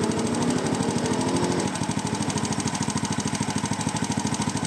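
Honda XRM125 single-cylinder four-stroke engine idling with rapid, even firing pulses. About a second and a half in, the idle drops to a slower, quieter beat as the carburetor mixture screw is turned past its best point.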